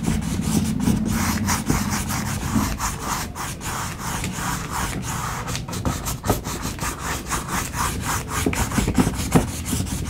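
A nylon flat paintbrush scrubbing acrylic paint onto a stretched canvas in rapid back-and-forth strokes, several a second, as blue and white are blended across the sky.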